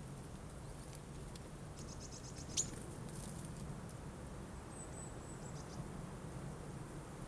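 Tits at a forest bird feeder giving short, high-pitched calls and rapid ticks. There is one sharp loud click about two and a half seconds in, over a steady low hum.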